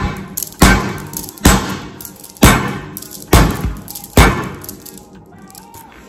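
Fists punching bread dough in a bowl on a countertop: six heavy thuds about a second apart, stopping about four and a half seconds in.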